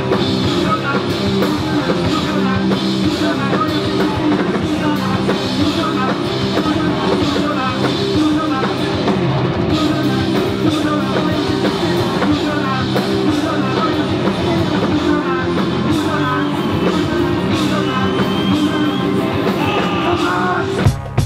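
Rock music with a drum kit and singing, loud and steady, cutting off near the end.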